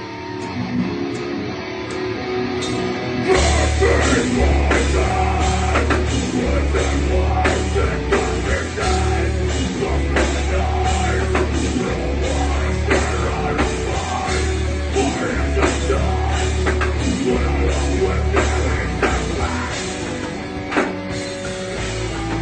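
Live heavy rock band playing. Electric guitar plays alone at first, then drums and bass guitar come in hard about three seconds in, and the full band plays on with a steady pounding beat.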